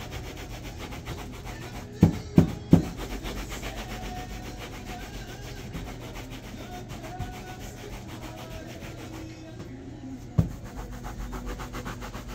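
Shoe shine in progress: steady quick rubbing strokes over a leather shoe. Three sharp knocks come about two seconds in, and one more near the end.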